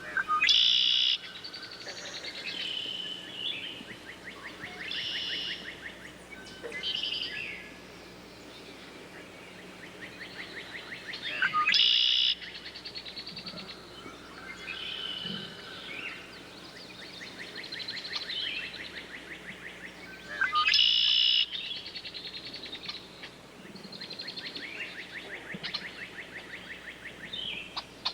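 Songbirds singing: a chorus of high chirping phrases and rapid trills, with a loud, short burst of song recurring about every ten seconds.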